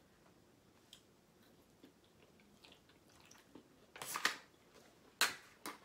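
A person chewing pizza close to the microphone, mostly quiet, with a few short, sharp mouth noises about four and five seconds in.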